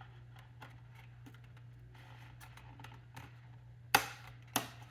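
Small plastic-and-metal clicks as a DDR4 laptop RAM stick is handled at its slot, then two sharp clicks near the end as the slot's retaining latches snap. A steady low hum runs underneath.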